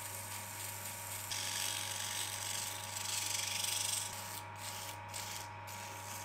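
Wood lathe running with a steady hum and whine while sandpaper is pressed against a spinning copper billet, a rough hissing scrape that smooths its machined finish. The scraping grows stronger after about a second and breaks off briefly a few times near the end as the paper lifts.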